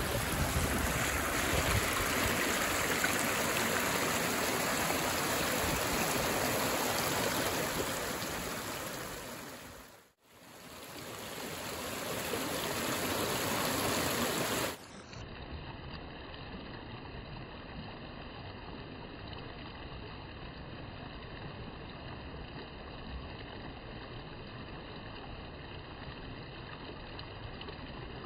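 Steady rush of running water. It fades out and back in about ten seconds in. About fifteen seconds in it switches abruptly to a quieter, duller rush.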